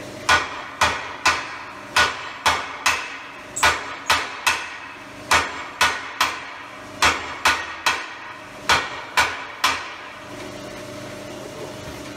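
Several sledgehammers striking hot iron in rotation, sharp ringing blows about two a second, often in runs of three. The strikes stop about ten seconds in, leaving a faint steady hum.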